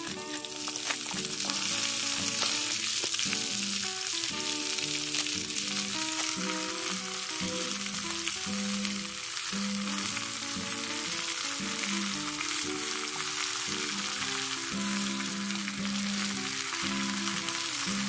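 Leafy greens sizzling in hot oil in a metal wok, the sizzle getting louder about a second in as they go into the pan. Background music with held notes plays underneath.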